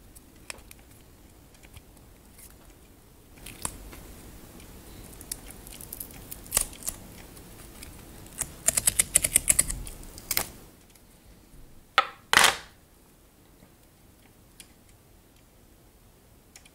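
A silicone rubber cable tie being flexed and peeled out of an open mold, with rubbery handling noises and scattered clicks. Midway comes a quick run of about ten small pops and clicks, then two loud sharp snaps a couple of seconds later.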